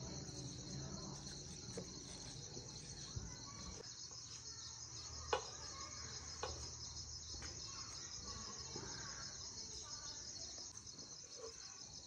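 Crickets chirping steadily in a dense, pulsing chorus, with a couple of short light clicks about five and six and a half seconds in.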